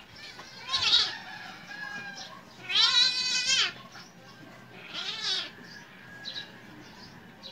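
A cat yowling in distress while a dog bites it: three cries, a short one about a second in, a longer one with a wavering pitch around three seconds in that is the loudest, and a third about five seconds in.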